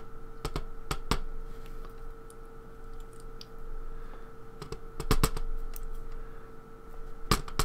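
Small, sharp metal clicks and taps in scattered clusters from steel tweezers working against a pin-tumbler lock cylinder and its follower while a spring is fished out of a pin chamber. A faint steady hum runs underneath.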